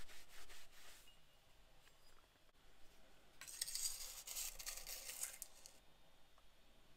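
Cloth rubbing a steel scraper blade clean. About three and a half seconds in, a steel palette knife scrapes freshly mulled azurite watercolor paint up off a glass slab for about two seconds.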